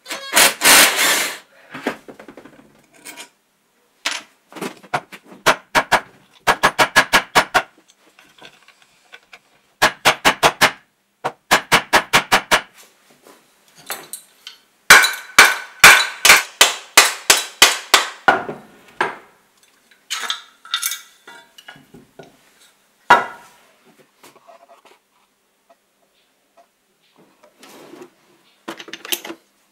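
Repeated sharp knocks in quick runs of several strikes, the loudest a little past the middle: the drill's metal motor housing being struck over a wooden block to free parts during disassembly.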